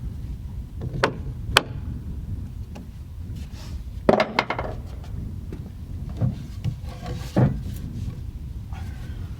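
Pressure-treated lumber being handled, knocking wood on wood: two sharp knocks in the first couple of seconds, a quick cluster of knocks about four seconds in, and a few more later, over a low steady rumble.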